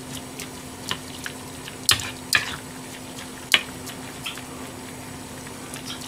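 Metal ladle stirring vegetables in broth in a hammered aluminium saucepan, with liquid sloshing and several sharp clinks of the ladle against the pan, the loudest about three and a half seconds in. A steady low hum runs underneath.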